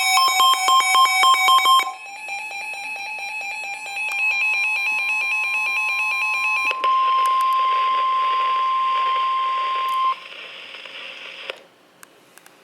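Emergency alert tones for a tornado warning: about two seconds of rapid pulsing electronic beeps, then steady electronic alarm tones. From about seven seconds a single steady alarm tone plays over a hiss of static. The tone stops about ten seconds in and the static cuts off a little later.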